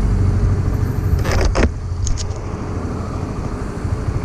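Honda Supra GTR 150 Fi's single-cylinder fuel-injected engine idling steadily with the bike standing still, with a brief rushing noise about a second and a half in.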